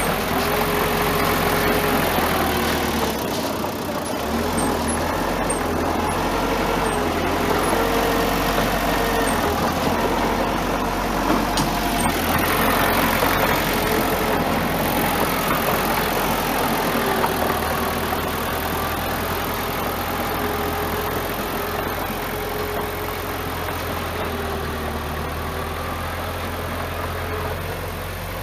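Bulldozer diesel engine running while pushing sand, its pitch rising and falling as the load changes, with a few faint sharp ticks.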